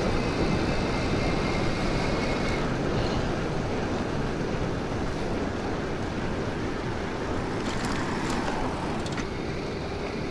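Wind rushing over the microphone with road and tyre noise from a 2000 W electric bike being ridden, a steady noise heaviest in the low range. A faint high whine sounds for the first two or three seconds.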